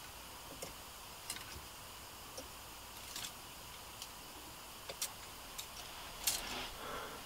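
Faint, scattered light clicks and rustling of small objects being handled by hand while he looks for his keys, about one click a second, the sharpest a little over six seconds in.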